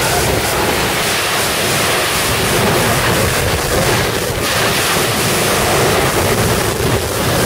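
Wind buffeting the microphone over the wash of surf on a beach, a loud, steady rush of noise.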